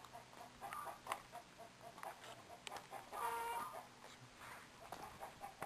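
Chickens clucking faintly with short repeated calls, and one louder drawn-out call about three seconds in.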